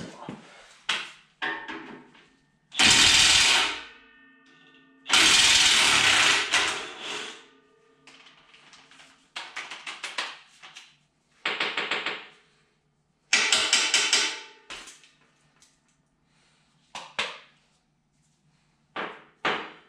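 Cordless DeWalt impact wrench hammering on the bolts of an International disk harrow frame, in a series of loud bursts of rapid blows with pauses between. The two longest bursts come a few seconds in, followed by shorter ones.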